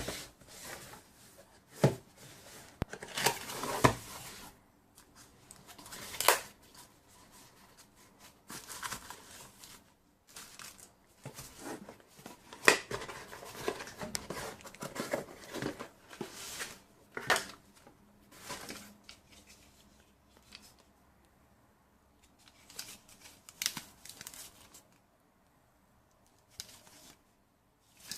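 Packaging being handled: plastic crinkling and rustling with irregular clicks and taps, coming in bursts with short quiet pauses.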